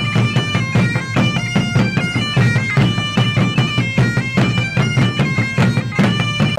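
Background music: a melody moving in held notes over a steady, evenly repeating beat.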